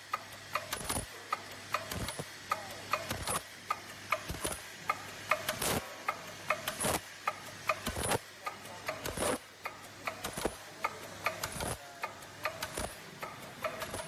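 Automatic PE zipper slider bag making machine running in its cycle: a sharp mechanical clack about every 1.2 seconds, with lighter clicks and ticks between the strokes.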